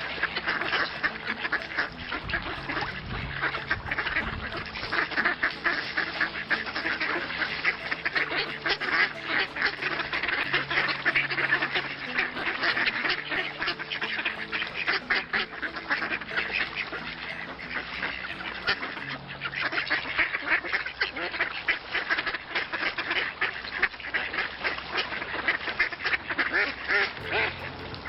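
A flock of ducks quacking continuously, many calls overlapping into a dense, unbroken chatter.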